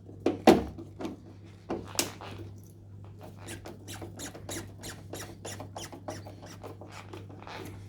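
Screwdriver driving a screw into a car door latch: a few sharp knocks, then a run of short, evenly spaced clicks, about three a second, as the screw is turned in.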